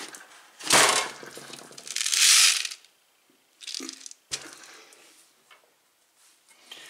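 Hard plastic tumbler bowl and lid being handled and fitted together: a few separate bursts of scraping, rubbing and knocking, with a sharp click a little past the middle.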